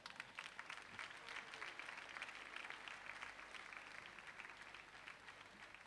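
Faint audience applause, a dense patter of clapping that swells right at the start and slowly tapers off.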